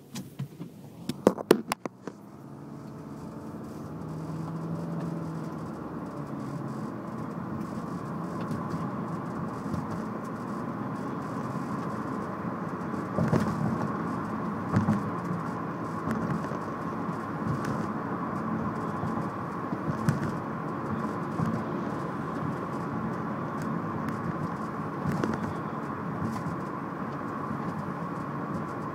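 Nissan Altima running steadily with a faint repeated tapping, the annoying tapping noise it has developed. A few sharp clicks about a second in, after which the running sound builds and settles.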